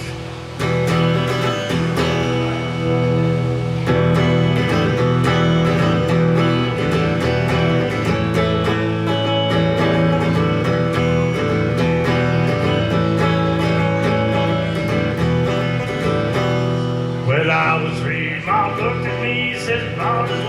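Live country band music led by guitars, playing the song's intro, with a singing voice coming in near the end.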